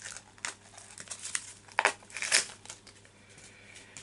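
Packaging being crinkled and pulled off a plastic dinosaur figure by hand: irregular bursts of rustling and tearing, the loudest a little under two seconds in and again just after.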